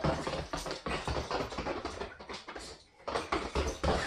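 Rapid, uneven tapping and scuffling of a small dog's booted feet on a hard floor as it scrambles about, with a short pause just before three seconds.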